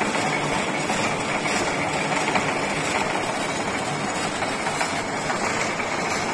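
Engine lathe running under power, its spindle and chuck turning with a steady mechanical whir.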